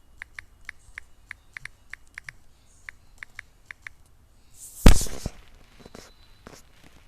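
A string of small, sharp clicks, a few a second, like mouse or keyboard clicks. About five seconds in comes one much louder short thump.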